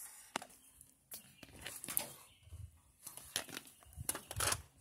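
Handling noise of a plastic cat anatomy model toy being moved about: scattered clicks and rustles, with a couple of light knocks.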